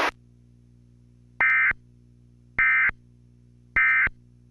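Emergency Alert System end-of-message signal: three identical short, shrill digital data bursts, about a second apart, the tones that mark the close of a broadcast warning. A faint steady hum lies underneath.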